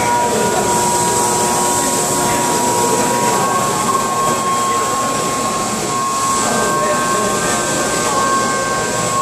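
CNC milling machine cutting a metal part under flood coolant: a steady machining noise with several steady high whines from the spindle and cutter over a hiss of coolant spray.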